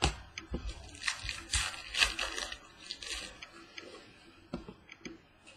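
Trading cards being handled on a table: papery rustling and sharp little taps as cards are flicked through and set down, busiest in the first three seconds, then a few light clicks.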